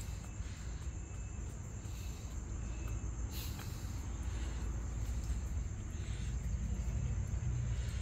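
A steady, thin high-pitched drone, of the insect-chirr kind, over a low rumble of handling noise, with a faint brief rustle about three seconds in.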